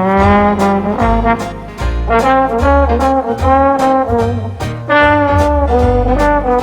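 Background music: an upbeat jazzy brass tune with horn melody over a steady beat and bass.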